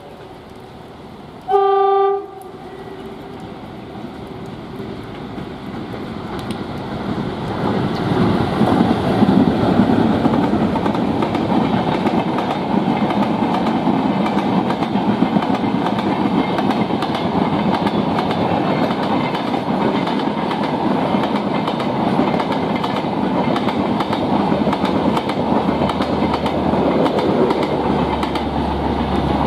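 WDP3A ALCO diesel locomotive sounds one short horn blast about a second and a half in. The train then comes closer and runs through at speed, the noise building over several seconds and staying loud with wheels clattering over the rails as the coaches pass.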